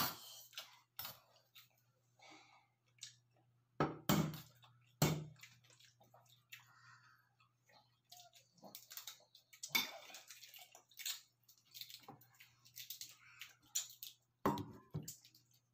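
Balut eggshell being cracked and peeled by hand: irregular small crackles and clicks of shell breaking away, with a few sharper knocks, twice in the first third and once near the end.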